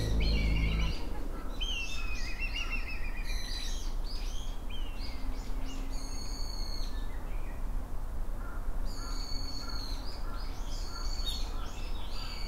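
Small birds singing and calling: varied chirps, a falling trill and repeated high phrases, over a low steady rumble.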